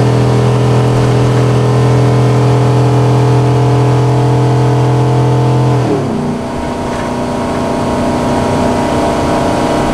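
Ford 6.8-litre V10 gas engine of a motorhome heard from inside the cab, working hard at full throttle up a grade with a steady, loud drone. About six seconds in, its revs drop sharply and the note falls lower and a little quieter, then holds steady.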